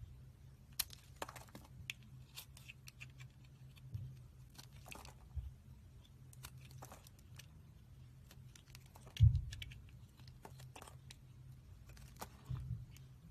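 Small blade carving thin curls from a bar of soap: scattered short scraping and crackling cuts, with a low hum underneath. A loud low thump comes about nine seconds in.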